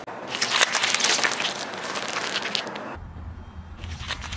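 Car tyre slowly crushing a heap of fresh figs on asphalt: a dense crackle of popping, squashing fruit and grit under the rubber. About three seconds in, a low steady rumble comes in beneath further crackling.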